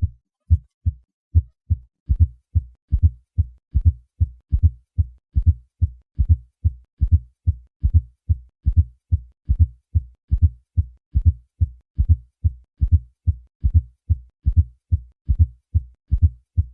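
Recorded heart sounds heard through a stethoscope at the cardiac apex: a steady run of low thuds, with a fourth heart sound (S4) just before each first heart sound, giving a triple gallop rhythm. It is the sign of a stiff, non-compliant ventricle.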